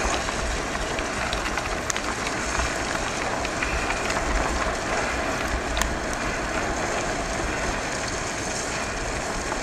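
Steady rush of wind buffeting the microphone and mountain-bike tyres rolling over a wet dirt track at speed, with a few small clicks and rattles.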